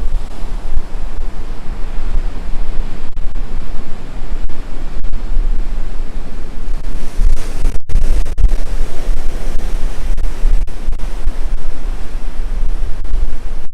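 Strong wind buffeting the microphone in a heavy low rumble, over the steady wash of ocean surf.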